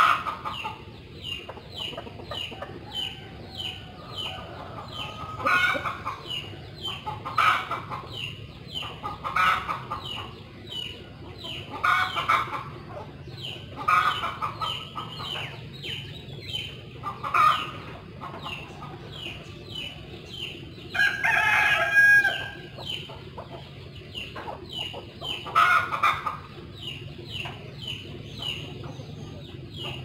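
Chickens clucking in short bursts every couple of seconds, with a rooster crowing once a little past the middle. Under them runs a steady series of quick, high, falling chirps, about three a second.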